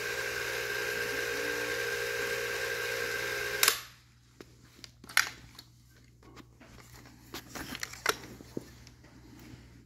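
Bolex H16 16mm cine camera's spring-wound clockwork drive running with a steady whir. It stops abruptly with a click a little under four seconds in, followed by a few light clicks and taps of handling.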